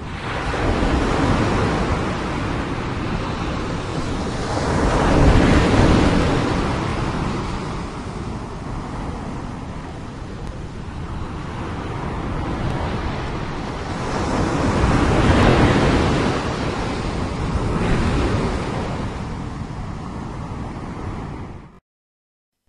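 Ocean surf: waves breaking and washing up a sandy beach, the rush swelling and ebbing with each wave, loudest about five seconds in and again around fifteen, then cutting off suddenly near the end.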